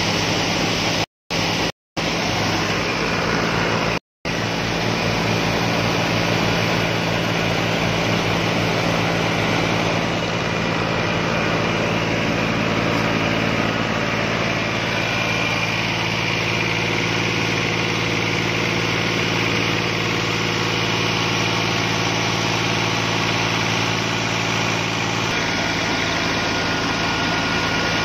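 Tractor-driven wheat thresher running steadily under load: the tractor's diesel engine and the spinning threshing drum give a constant mechanical drone as wheat straw is fed in. The sound cuts out briefly a few times in the first four seconds.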